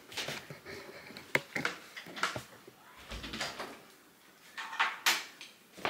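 A house door being opened as someone comes in: scattered knocks, clicks and rustles, with a dull thump about three seconds in.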